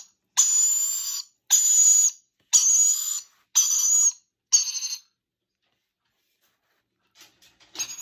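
Young hand-reared parrot chick begging for food: five harsh, hissing calls, each under a second and about a second apart, stopping about five seconds in. A few faint clicks near the end.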